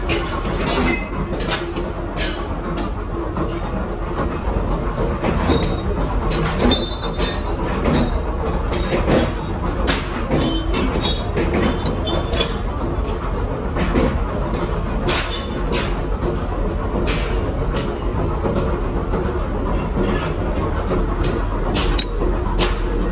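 Workshop machinery running with a steady low rumble, overlaid with frequent irregular sharp clicks and knocks.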